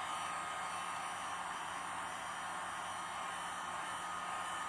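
A steady rushing hiss with a low hum underneath, unchanging in level.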